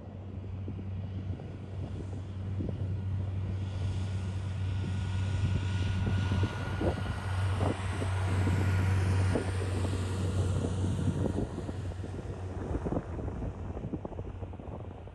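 Airbus A319-112 airliner's CFM56 turbofan engines as it takes off past: a jet roar that swells to its peak about halfway through, with a steady whine and a falling high whistle, then fades away.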